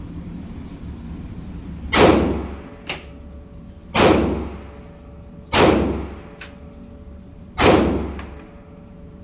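Four pistol shots from a Glock firing cheap steel-case ammunition, spaced about one and a half to two seconds apart, each with a long reverberant tail. Fainter clicks fall between the shots.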